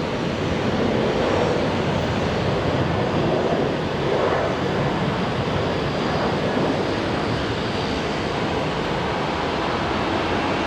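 Boeing 737-800's CFM56-7B jet engines at takeoff thrust during the takeoff roll and liftoff, a steady noisy roar with wind on the microphone.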